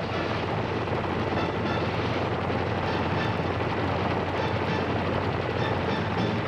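Machine-gun fire from a Huey helicopter gunship, rapid and unbroken, over a steady low hum.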